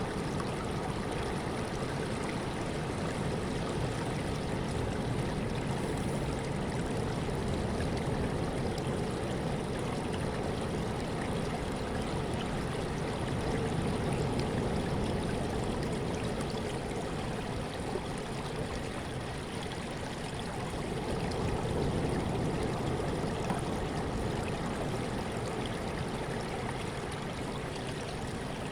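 Sea waves washing in, a steady rushing of water that swells gently twice.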